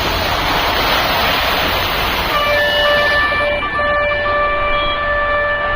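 Street traffic with a steady rushing noise, then, a little under halfway in, a vehicle horn starts sounding one long held note at a steady pitch.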